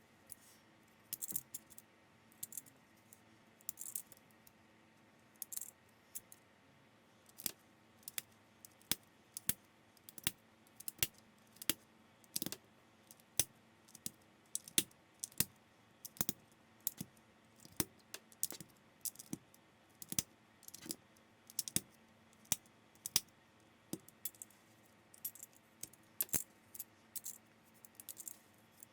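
Plastic building bricks being handled and pressed together: a run of sharp clicks, roughly one or two a second, with bursts of loose pieces rattling in the first few seconds.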